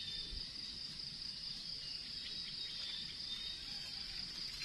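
Steady, high-pitched chorus of insects in the forest, with faint rustling and scraping of dry leaf litter as a knife cuts mushrooms free from the ground.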